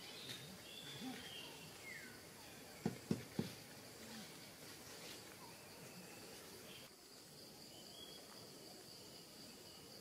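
Dry forest ambience: a steady high-pitched insect drone, with a few faint bird chirps in the first two seconds and three quick low knocks about three seconds in.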